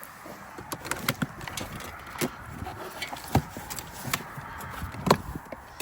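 Irregular sharp clicks and knocks, with a few louder thumps about two, three and five seconds in, from handling of the bike and its camper as a dog is got on board, over a steady hiss of strong wind.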